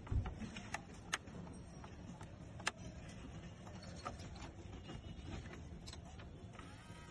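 Sharp clicks and light knocks of small hard parts being handled, with a dull thump at the start, over a steady low hum.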